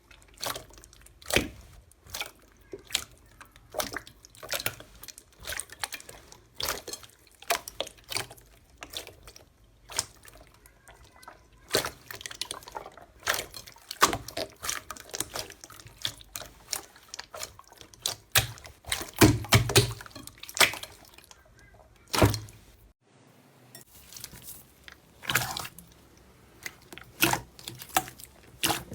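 Slime being squished and stretched by hand, making irregular wet clicks and pops.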